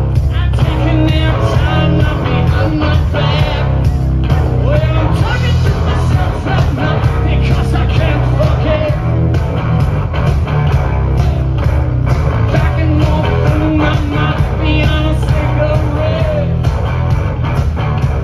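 A rock band playing live with singing, as heard from the crowd through a phone's microphone, with a heavy, distorted low end.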